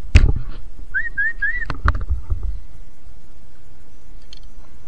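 Hooked black bass splashing and thrashing at the surface beside an inflatable kayak as it is brought to the landing net, loudest right at the start with more splashes and knocks about two seconds in. About a second in come three short whistled notes.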